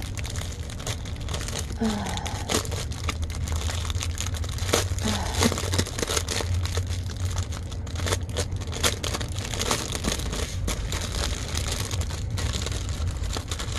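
Small plastic bags of diamond-painting drills crinkling and crackling as they are handled, with many quick irregular clicks.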